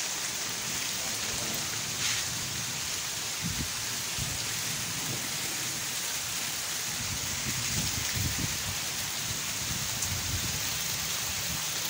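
Heavy downpour: a steady hiss of heavy rain on the ground, with a few low rumbles about three and a half seconds in and again a little past the middle.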